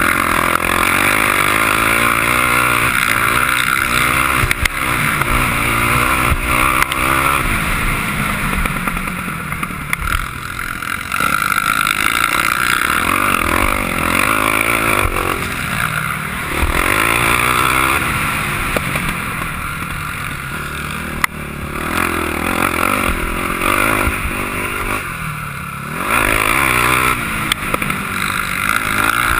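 Sport quad's engine heard on board while it is ridden hard around a dirt motocross track, revs rising and falling repeatedly with a few short throttle lifts.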